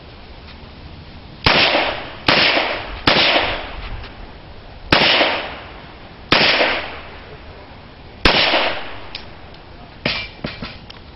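Six handgun shots fired at a pistol-match course of fire, each with a short trailing echo: the first three come quickly, about a second apart, and the rest are spaced out as the shooter moves between targets. A few lighter clicks follow near the end.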